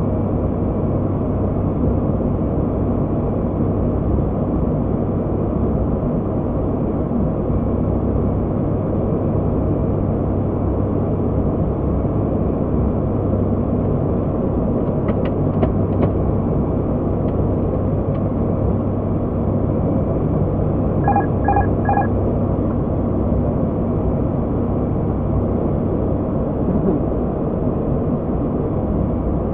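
Steady drone of an ATR 72-600's turboprop engines and propellers heard in the cockpit, with airflow hiss. About halfway through there are a few faint clicks, and about two-thirds through three short beeps.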